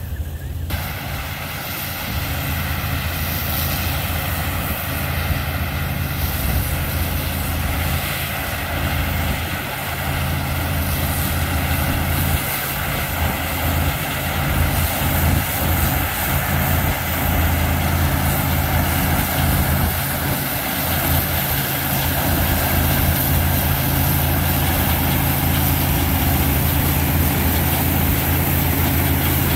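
Allis-Chalmers tractor pulling a pull-type combine harvesting wheat: the tractor engine and the combine's threshing machinery run steadily, growing louder as they come closer.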